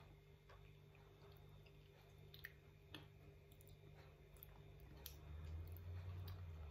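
Faint soft chewing and small wet mouth clicks of someone eating creamy leche flan, with a steady low hum behind. A low hum swells near the end.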